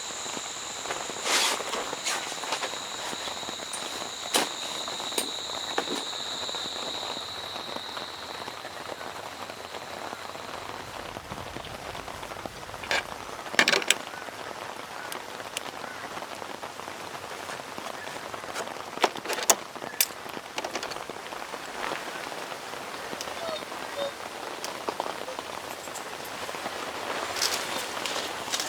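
Steady rain falling on a surface, with scattered taps and knocks throughout. A high, steady whine sounds for the first several seconds, then fades out.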